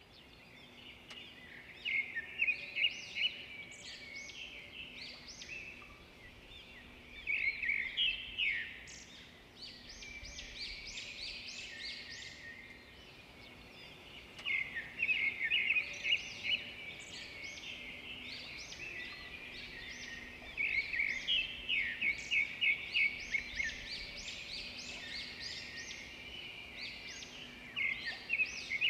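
Red-whiskered bulbul singing in repeated bouts of quick, chattering phrases, with short pauses between bouts.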